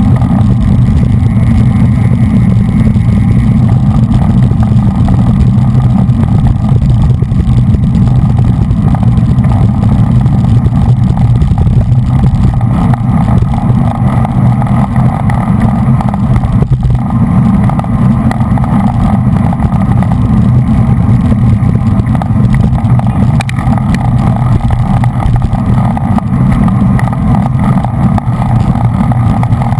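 Loud, steady wind and road rumble on a GoPro's microphone while riding at racing speed in a bunch of road bicycles.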